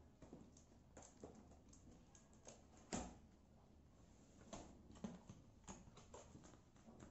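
Faint handling of a cardboard ring-light box: light taps, scrapes and rustles as the box is slid and turned, with one sharper knock about three seconds in.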